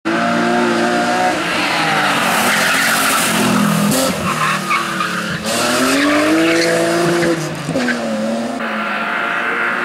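BMW M3 E36's straight-six engine revving hard while its rear tyres squeal and skid as the car drifts through the corners. The engine pitch climbs and drops again and again with the throttle.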